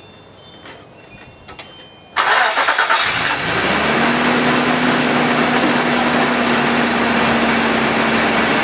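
A truck's engine being started after an ignition tune-up: a few light clicks, then the starter cranks briefly about two seconds in, the engine catches within a second and settles into a steady idle. The quick start is the sign that the new plugs went in right.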